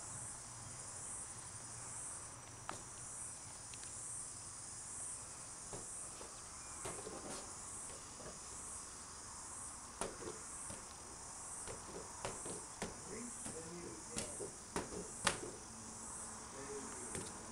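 Insects chirping steadily, a high-pitched sound that swells and fades about once a second, with a few scattered sharp clicks and soft rustles over it.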